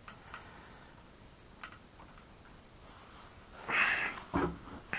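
Mostly quiet, with a few faint clicks and then a short breathy noise, like a person's sniff or breath, about four seconds in; the engine is not running.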